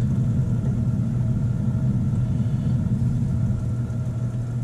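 A steady low machine hum, with a few even tones held throughout.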